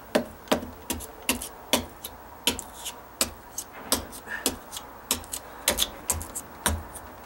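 Hammer tapping a chisel into dry-rotted deck framing, a steady run of sharp strikes about three a second, cutting away the rotten wood to see how far the rot goes.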